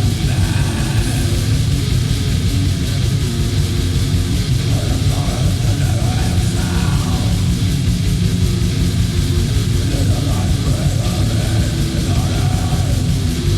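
War metal: distorted guitars and fast, dense drumming forming a loud, unbroken wall of sound.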